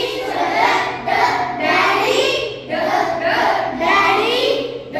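A group of young children singing in unison: short phrases of a phonics chant, one after another.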